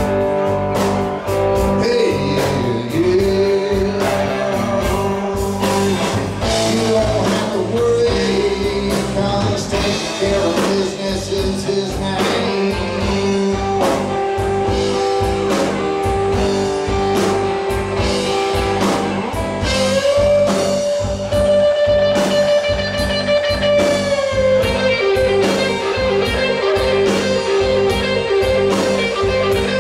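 Live blues-rock band playing: electric guitar, electric bass and a drum kit, with long held guitar notes that bend up in pitch.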